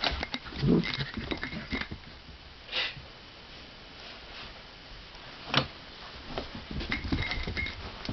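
Two poodles moving about and playing on a carpeted floor, making scattered soft patter and light clicks. The sounds are busiest in the first two seconds and again near the end, with a quieter stretch between.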